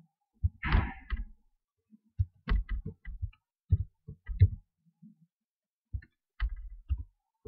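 Computer keyboard keys pressed one at a time in uneven bursts while a password is typed, each keystroke a short dull click. A brief rustling hiss comes about a second in.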